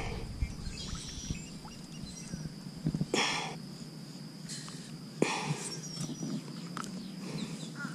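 Steady high-pitched insect drone with a few faint bird chirps, broken by two short rushes of noise about three and five seconds in and a few light knocks.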